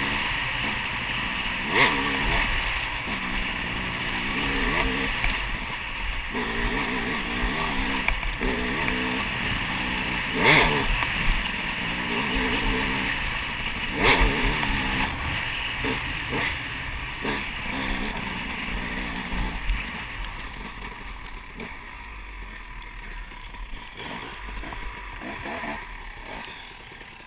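Dirt bike engine, heard from the rider's helmet, revving up and down over a rough trail, with sharp knocks about 2, 10 and 14 seconds in. After about 20 seconds the engine drops back and quiets as the bike slows.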